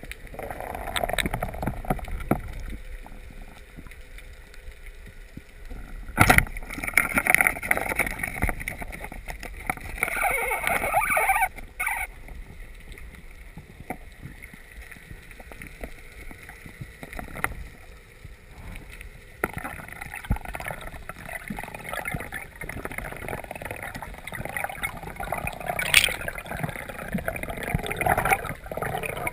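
Underwater water noise heard through a camera housing: rushing and gurgling water with bubbles while a diver handles a speared hogfish. A sharp knock comes about six seconds in, with louder turbulence for several seconds after it and again in the last third.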